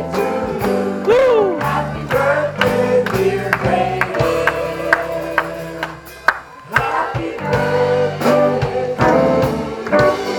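Live band playing a song with guitar, bass and drums and a singer's voice. The music drops out briefly about six seconds in and then comes back in.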